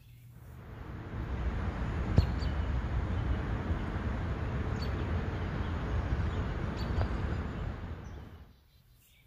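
Outdoor ambience: a steady, low rumbling hush like wind and distant background noise, with a few faint bird chirps. It fades in at the start and fades out near the end.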